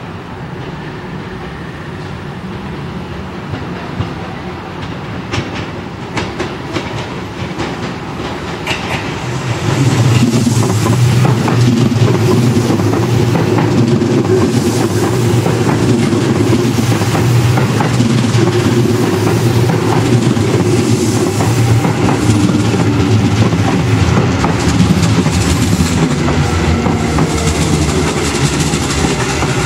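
Seibu 9000 series electric commuter train rolling in over points and rail joints, wheels clacking, growing louder about ten seconds in as the cars pass close. Near the end the IGBT-VVVF inverter's whine falls in pitch as the train brakes to a stop.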